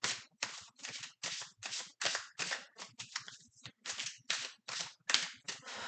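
A deck of tarot cards being shuffled by hand: a run of short card swishes and snaps, about three a second.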